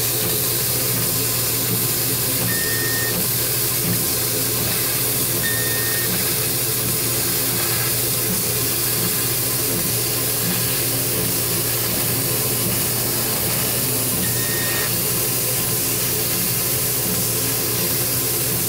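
Laser cutter cutting plywood, its air assist and fans giving a steady hiss and hum, with three brief high-pitched squeaks from the laser. The owner blames the squeal on old distilled water in the tube's chiller.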